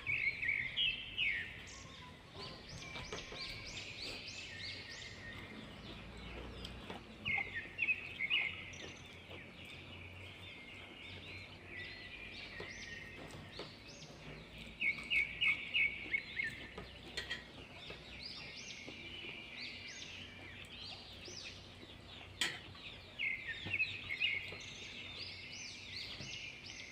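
Birds chirping in recurring bursts of quick, high-pitched calls, with quieter stretches between the bursts.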